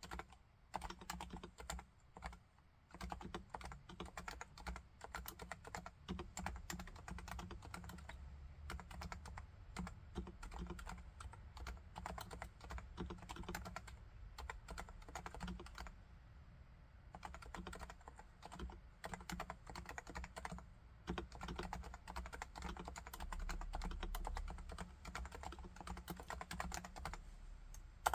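Typing on a Topre Realforce R2TLSA keyboard with silenced 45 g electro-capacitive switches: a steady run of soft, muffled keystrokes, with a few short pauses.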